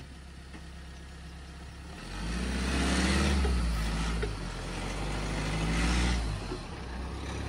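Mahindra Scorpio N's diesel engine idling, then revving up under load about two seconds in as the SUV pulls forward over loose dirt, with tyre and gravel noise. It eases back down near the end.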